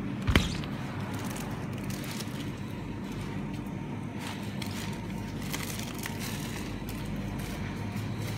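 A single sharp knock about a third of a second in, then a steady low hum of the store's refrigerated display cases, with light crinkling of plastic packaging now and then.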